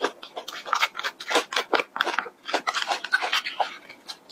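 Red plastic spoon scraping and clicking against the inside of a clear plastic dessert cup of chocolate cake and cream, picked up close: a quick, irregular run of short scrapes.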